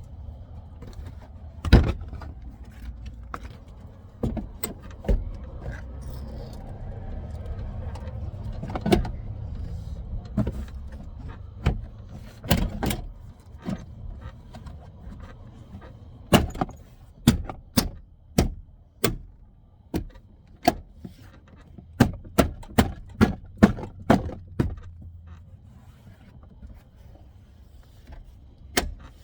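Plastic door trim panel of a 2001 Silverado being pushed back onto the door: a series of sharp clicks and knocks as the panel clips snap into place, coming in a quick run in the second half.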